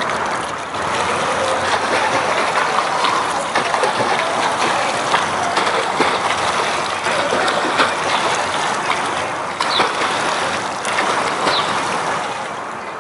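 Pool water splashing steadily as a swimmer kicks and pulls one arm through the water while holding a foam kickboard out in front.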